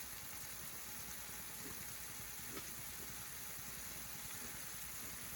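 Bok choy and garlic sautéing in oil in a pan: a faint, steady sizzle with a couple of small pops.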